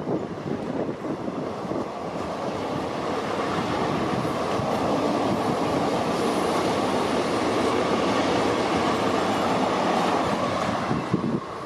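Express train running past on the rails: a steady, loud rumble and rattle of coaches and wheels, with some clickety-clack.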